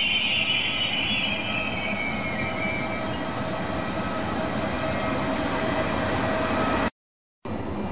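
Trenitalia E464 electric locomotive and its train rolling away on curved track. High-pitched wheel squeal from the curve fades out over the first two or three seconds, then a steady rumble of the train running on. The sound cuts out abruptly for half a second about seven seconds in.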